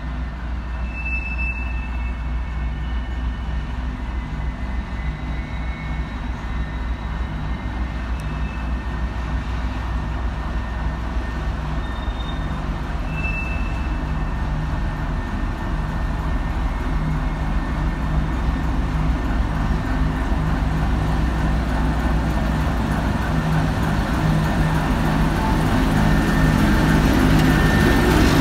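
ChME3T shunting diesel locomotive's six-cylinder diesel engine running with a steady low drone, growing steadily louder as the locomotive approaches and draws up alongside.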